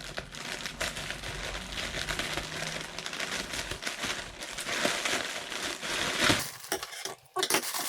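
A mailing bag being opened and handled: continuous crinkling and rustling with many small crackles, which break off briefly near the end.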